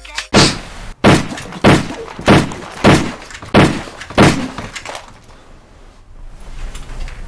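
Seven handgun shots in quick even succession, about one every two-thirds of a second, each with a short ringing tail. The shots stop a bit past the middle and faint low noise follows.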